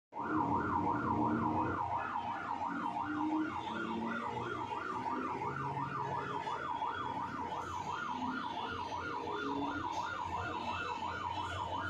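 Electronic siren-like tone warbling rapidly up and down, about four times a second, at an even level throughout.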